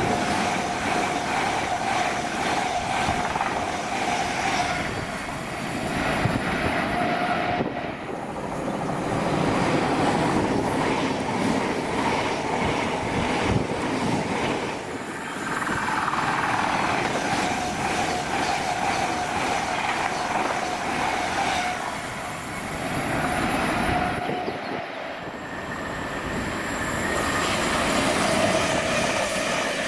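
Passenger trains, among them an LNER Azuma, running through stations at speed one after another: steady wheel-on-rail running noise and rushing air, with a steady hum at times. The sound changes suddenly several times as one train's pass gives way to the next.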